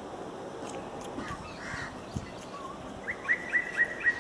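Birds calling over a steady background hiss; about three seconds in, one bird gives a quick run of about five short high notes, roughly four a second.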